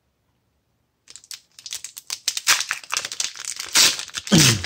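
Pokémon Burning Shadows foil booster pack being torn open and crinkled by hand, starting about a second in with dense crackling rustles as the wrapper is pulled apart.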